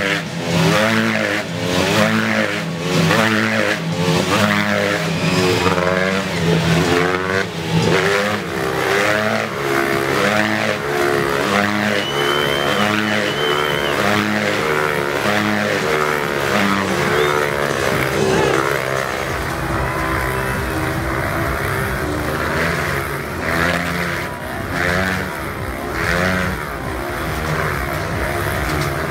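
Motorcycle engines revving inside a steel globe of death, their pitch rising and falling over and over as the riders circle the sphere.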